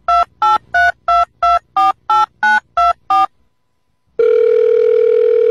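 Touch-tone phone keypad beeps: ten digits dialed in quick succession, about three a second, followed about a second later by a steady ringing tone on the line.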